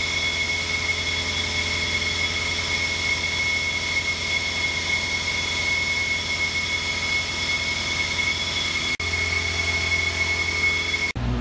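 Vactor vacuum truck running, its suction hose drawing out a tank through the manway: a steady high whine over a low hum.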